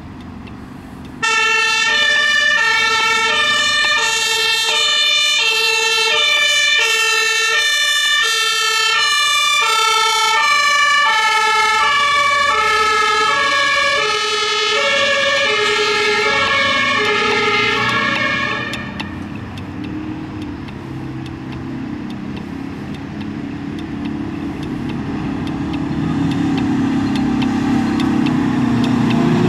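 Fire engine's German two-tone siren (Martinshorn) sounding, high and low notes alternating about every half second. It starts abruptly about a second in and cuts off suddenly after about 18 seconds. The truck's engine then grows louder as it pulls out and approaches.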